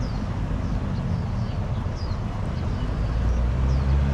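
A motor engine hums steadily and grows louder about three seconds in. Short, high, falling bird chirps repeat over it.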